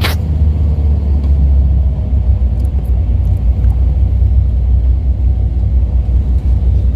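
Steady, loud low rumble of street noise around a crowd walking on a road, heavy in the bass.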